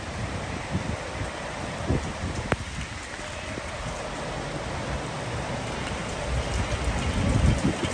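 Heavy rain falling steadily over city rooftops, an even hiss, with irregular low buffeting from wind on the microphone that grows stronger near the end. A single short click comes about two and a half seconds in.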